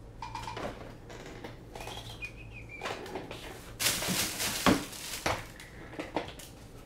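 Someone rummaging through stored tools and supplies: scattered clicks and knocks with a brief high squeak, then a louder rustling clatter about four seconds in.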